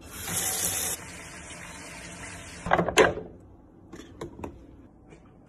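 Tap water running into a clear plastic tub in a stainless steel sink: a loud, bright splash for about the first second, then a quieter, steady fill. About three seconds in, a couple of loud clunks as the plastic tub knocks against the sink, followed by a few light taps.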